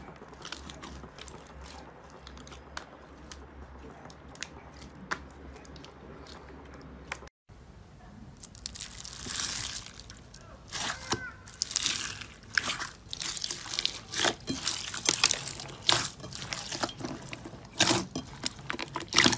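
Slime being pressed and pulled close to the microphone: many small crackles, clicks and wet squishes, quieter at first, then denser and louder after a short cut about seven seconds in.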